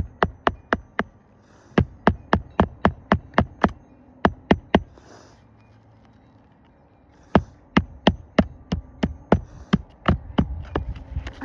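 Hammer driving roofing nails into a 3-tab asphalt shingle: quick sharp strikes, about four a second, in several runs, with a pause of about two seconds in the middle.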